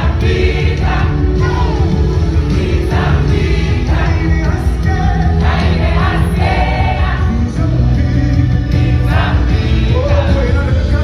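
Music with a choir singing over a steady accompaniment with heavy bass.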